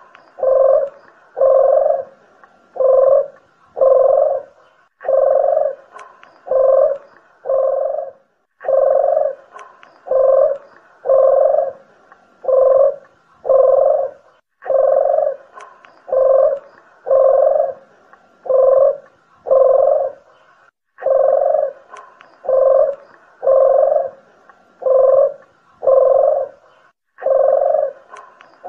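Collared doves (puter and deruk jawa) cooing on a bird-lure recording: low coo notes about one a second, in runs of four to six with short breaks between runs.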